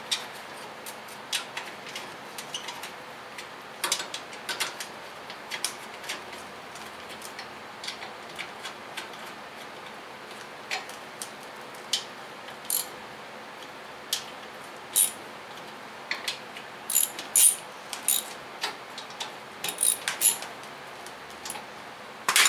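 Irregular metal clicks and clinks of a hand wrench or ratchet tightening 10 mm bolts on a steel generator frame, with a sharper clank near the end.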